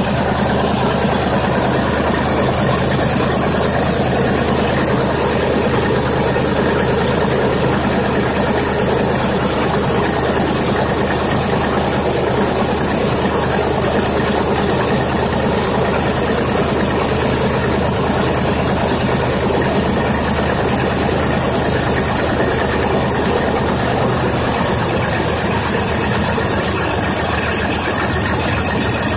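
1990 Ford F-150 pickup's engine idling steadily, heard from the open engine bay, with an odd hollow sound that the owner puts down to echoes off an open garage in front of the truck.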